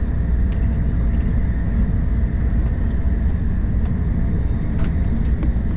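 Steady low rumble of a moving Tokaido Shinkansen bullet train heard from inside the passenger cabin, with a few faint clicks.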